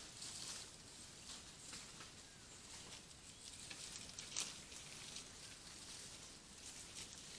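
Faint outdoor background hiss with scattered small ticks and rustles, and one sharper click about four and a half seconds in.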